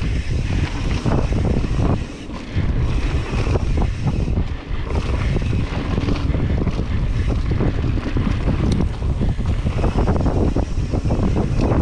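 Wind buffeting the microphone of a camera on a mountain bike moving at speed on a dirt flow trail, a steady low rumble broken by scattered knocks and rattles from the bike over the ground.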